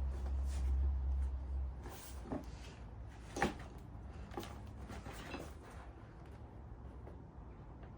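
A low hum that stops about two seconds in, then a few scattered clicks and knocks of heater kit parts being handled.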